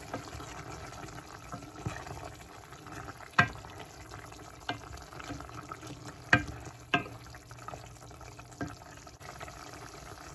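A spoon stirring chicken livers simmering in a soy sauce and vinegar sauce in a pot: a steady wet hiss of the liquid, with about six sharp clinks of the spoon against the pot.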